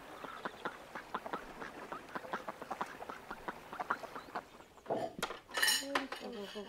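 White domestic ducks quacking in many quick, short calls. About five seconds in, this gives way to louder clinking of dishes and cutlery, with a voice.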